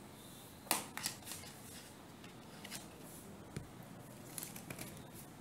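Handling noise from brush pens in their box: one sharp click about three quarters of a second in, then lighter clicks and rustling.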